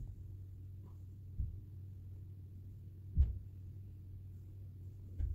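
Dull low thumps as a shirt is shaken out and pulled at to untangle it: three of them about two seconds apart, the loudest about three seconds in. A steady low hum runs underneath.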